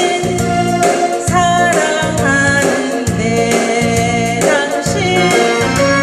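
Korean trot song: a woman singing into a microphone over a backing track with a steady beat.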